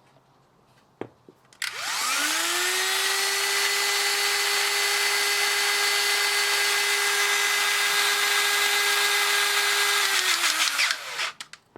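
A click, then the Robo Crimp's electric motor and hydraulic pump start up, rising quickly to a steady whine. It runs for about nine seconds, then winds down and stops.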